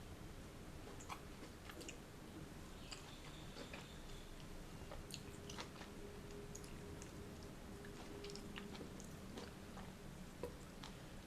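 Close-miked chewing of fresh fruit, with scattered soft wet mouth clicks throughout.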